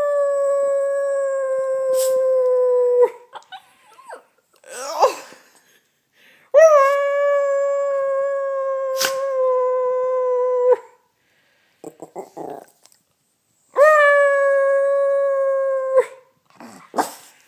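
Yorkshire terrier howling: three long howls, each opening with a quick upward swoop and then held on one steady pitch, the last one shorter.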